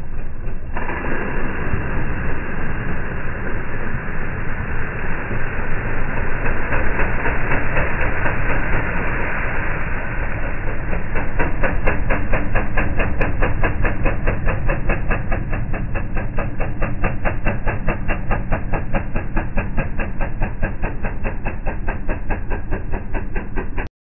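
ATV engine and creek water, slowed down into a deep, drawn-out rumble. A hiss of splashing water rises in the middle. From about halfway the sound settles into an even, fast chugging pulse as the engine pulls away.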